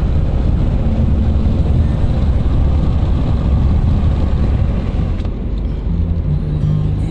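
Steady low rumble of road and engine noise from a moving car, with no sharp events.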